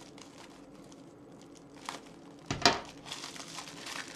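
Thin clear plastic packaging crinkling as it is handled and pulled off a metal skimmer spoon, faint at first, with one sharper, louder crackle about two and a half seconds in, then denser crinkling.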